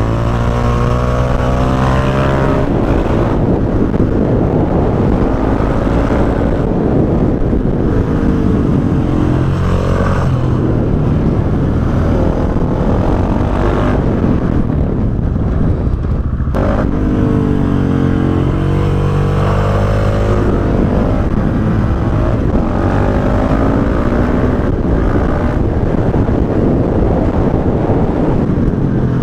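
KTM 690 SMC-R's single-cylinder engine through an Akrapovic exhaust with the dB killer removed, accelerating again and again, its pitch climbing and dropping back with the gear changes.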